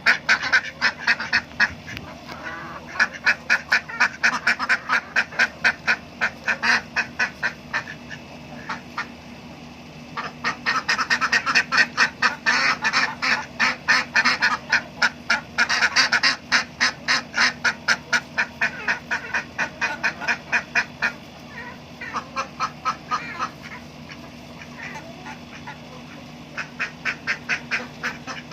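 Ducks quacking in rapid runs of calls, about three or four a second, with short lulls between runs.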